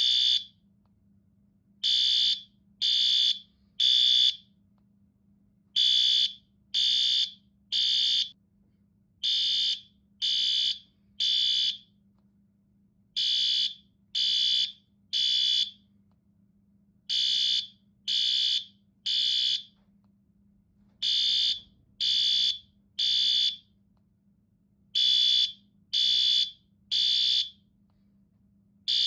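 Fire alarm sounding the temporal-three evacuation signal: high-pitched beeps in repeating groups of three, each group followed by a short pause.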